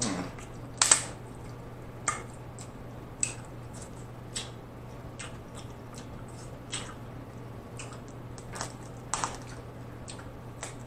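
Close-miked eating of a king crab leg: the shell cracking and being picked apart, with wet chewing and squishing. Sharp crackles come about a second in and at scattered moments after, over a steady low hum.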